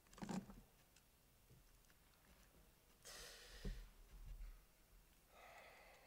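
Near silence: room tone with a few faint breaths and a short knock close to a microphone.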